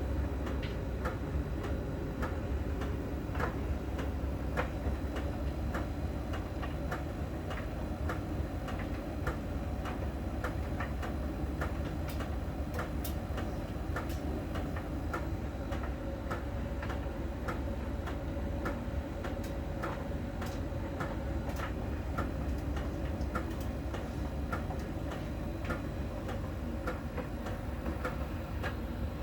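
Miele tumble dryer running with a steady drum rumble and repeated sharp ticks, about one to two a second, as the drum turns. The ticking comes from the dryer's small ball-shaped sensor on the drum touching a contact spot on the drum's outer surface during rotation, as a Miele technician showed the owner.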